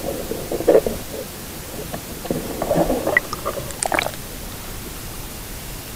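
Muffled gurgling and bubbling of lake water heard through a camera held underwater, with irregular soft knocks from handling. A few brief sharper clicks come about three to four seconds in.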